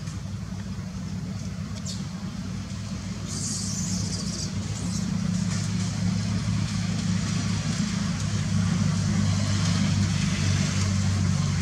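A steady low engine hum that grows gradually louder, as of a motor vehicle running nearby.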